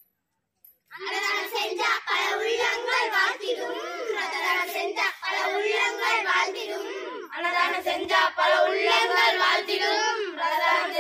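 A group of children singing a Tamil song together in unison, coming in about a second in after a brief silence and pausing briefly between lines.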